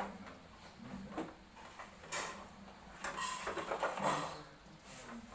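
Intermittent knocks and scraping noises, with a burst of scraping about two seconds in and a busier stretch of knocks and scrapes a second later.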